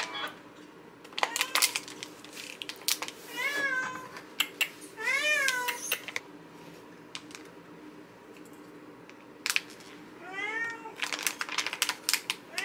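Cats meowing for food, three calls that each rise and fall in pitch. Between them, sharp crinkles and snips come from scissors cutting open a plastic pet-food pouch and chopping its contents.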